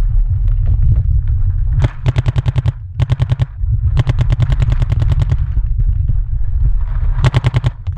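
Paintball markers firing in rapid bursts of about a dozen shots a second: four bursts, the longest lasting over a second.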